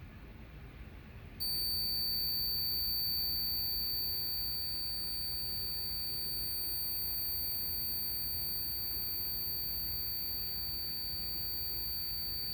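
A fire alarm system's electronic sounder, set off by a pulled pull station, gives one steady high-pitched tone. It switches on about a second and a half in and holds without a break.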